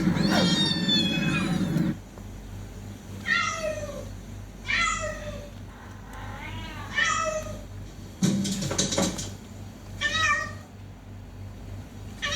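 A cat meowing over and over: one longer cry, then short meows that fall in pitch, one every second or two. A low rumble runs under the first cry and stops about two seconds in.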